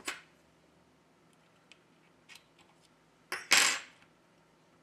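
Small hard clicks and taps of a plastic repair tool against a smartphone's board and flex-cable connectors. A louder clatter about three and a half seconds in, as a tool or part knocks against the hard work surface.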